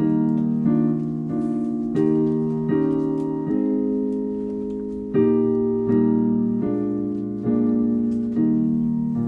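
Piano playing a slow series of block chords, a new chord struck about once a second, each ringing and fading into the next.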